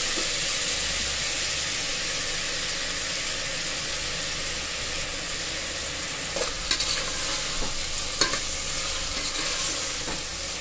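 Tomatoes, onions and green chillies sizzling in hot ghee and oil in a pressure cooker pan, a steady frying hiss. A metal slotted ladle stirring them knocks against the pot a few times in the second half.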